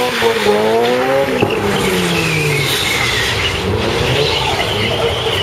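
Nissan S15 drift car's engine revving, its pitch climbing and then dropping after about a second and a half, while the tyres squeal through the rest of the slide.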